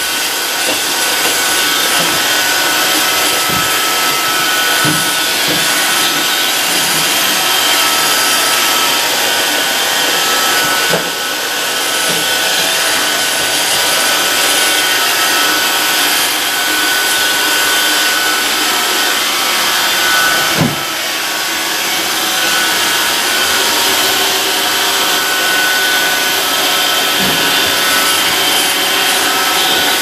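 iRobot Roomba robot vacuum running: a steady whir of its motor and brushes with a faint high whine, broken by a few brief knocks.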